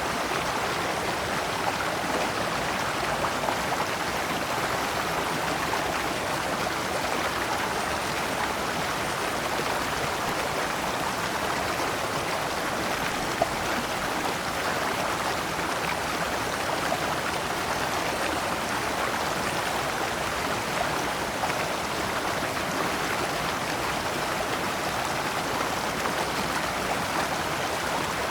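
Shallow rocky stream flowing steadily over and between large stones, splashing in small cascades. There is one brief click about halfway through.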